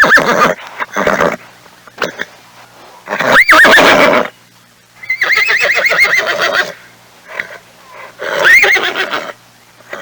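A horse neighing repeatedly, about five calls with short pauses between them. The longest, in the middle, is a quavering whinny whose pitch wavers rapidly.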